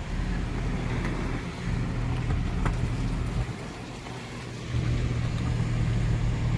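A motor vehicle's engine running with a low, steady hum that starts suddenly, eases off in the middle and swells again near the end.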